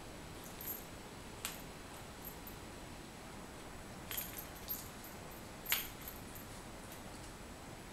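Plastic blister packaging handled by hand: several light, sharp clicks and crinkles over a faint steady hiss, the loudest about two thirds of the way through.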